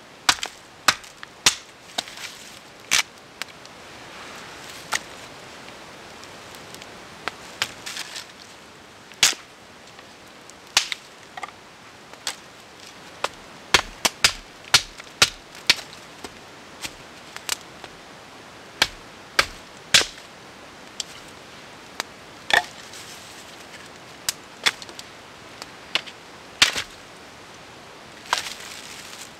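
Wood campfire crackling, with irregular sharp pops, some of them loud, over a soft steady hiss.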